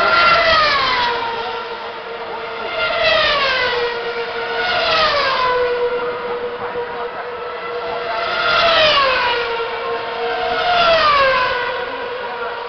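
2010 Formula 1 cars' 2.4-litre V8 engines screaming past at high revs, one after another, about five passes. Each engine note swells and then drops sharply in pitch as the car goes by.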